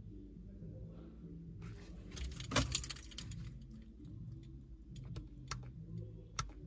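Car keys jangling on their ring as the ignition key is turned, switching the ignition back on mid-programming, about two seconds in, followed by a few sharp clicks over a low steady hum.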